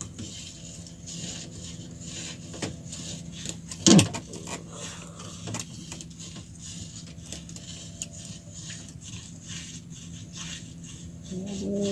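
Fishing handline being pulled in hand over hand on a small wooden boat: scattered light clicks and rubbing, with one sharp knock about four seconds in. A steady low hum runs underneath.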